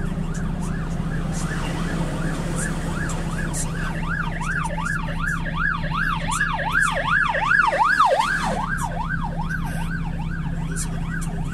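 Emergency vehicle siren on a fast yelp, its pitch sweeping up and down about two and a half times a second. It grows louder toward the middle and then fades as it passes, over the steady low hum of an idling truck engine.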